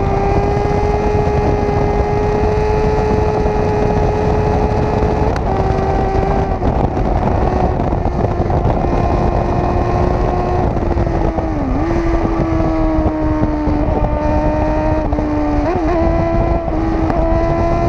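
Sport motorcycle engine held at high, steady revs at speed, with heavy wind rushing over the microphone. A little past halfway the engine note dips briefly and settles slightly lower, with another short wobble near the end.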